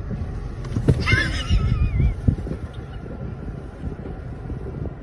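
Wind buffeting the microphone, a low rumbling with irregular knocks, and a short high wavering call about a second in.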